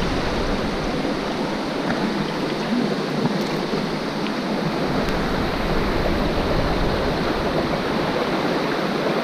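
Creek current rushing steadily over rocks, loud enough to make speech hard to hear.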